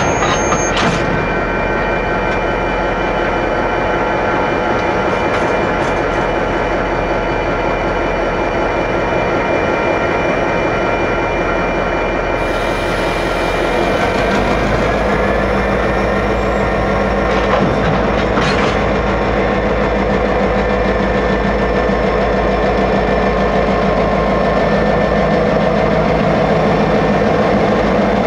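Diesel-electric locomotives of the Union Pacific and Southern Pacific running loud and steady as they move slowly past. About halfway through, the engine note changes and grows a little louder.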